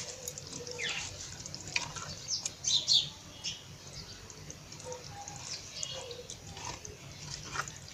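A pot of sweet potato leaf (matembele) sauce simmering and being stirred with a plastic fork: a run of wet bubbling pops and clicks, with some louder splashes about three seconds in.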